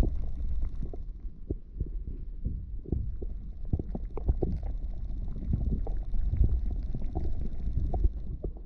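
Muffled underwater sound from a camera held below the surface: a low rumble with many irregular soft knocks and thumps, from water and a hand moving around a walleye held by the lens.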